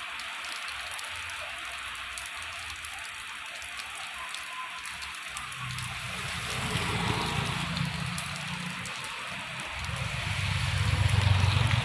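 Steady rain falling on wet asphalt and foliage. About halfway through, a vehicle engine hum swells and fades, and near the end a motorbike engine approaches, growing louder.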